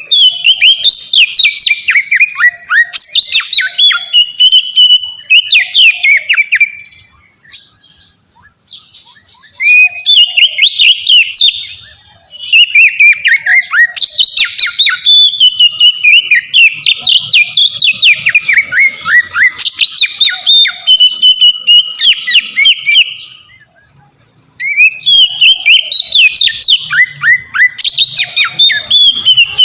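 Oriental magpie-robin (kacer) singing a loud, full song: long runs of quick, varied whistled notes. The song breaks off twice briefly, about a third of the way in and again near the end.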